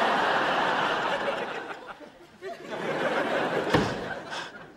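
Studio audience laughing in two swells, the second starting about two and a half seconds in. During the second swell comes a single sharp bang, typical of a door slamming shut.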